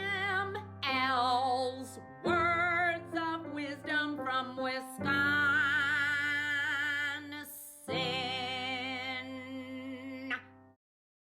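Music with a singing voice holding long, wavering notes over a sustained low accompaniment, in several phrases; it cuts off abruptly near the end.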